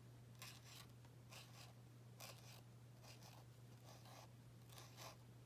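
Faint scratchy strokes of a paint marker drawing on paper, short strokes about once a second, over a low steady hum.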